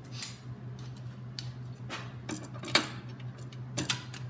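Hand tools on the hitch bolts: a socket and wrench giving irregular metal clinks and clicks, about eight in all, over a steady low hum.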